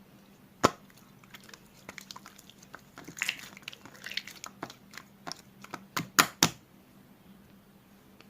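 Slime being played with by hand, giving sharp clicking and crackling pops: one loud pop about half a second in, a run of smaller crackles, then three loud pops close together near the end.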